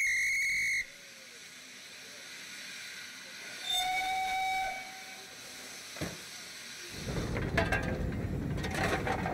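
Steam railway sounds: a short, loud, high whistle at the start, then about four seconds in a lower steam locomotive whistle sounds for about a second over a steady hiss of steam. From about seven seconds a louder, rough rushing noise with scrapes takes over.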